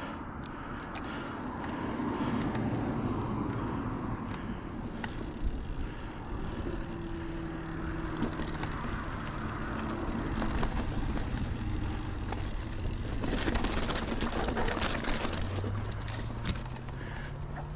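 Street traffic: cars driving past, a steady rush of tyres with engine hums that come and go, one hum climbing in pitch near the end.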